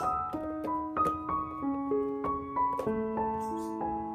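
Background music: a piano tune of sustained notes, one after another.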